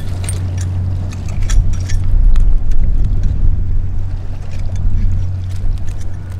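A steady, low engine drone with a held hum, swelling with louder rumbling gusts about two seconds in.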